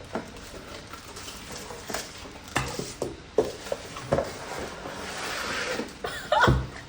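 Packaging being rustled and torn open by hand, a crinkly hiss with several sharp taps and knocks.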